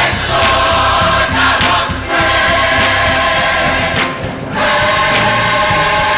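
Gospel choir singing held chords over instrumental backing, with brief breaks between phrases about two seconds in and again about four seconds in.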